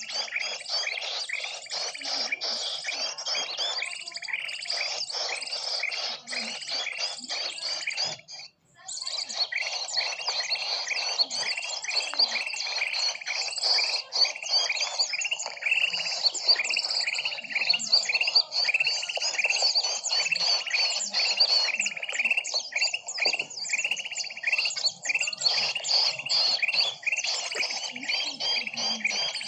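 Bird-lure recording of many small birds chirping densely and rapidly, calls overlapping without pause, with a brief break about eight and a half seconds in.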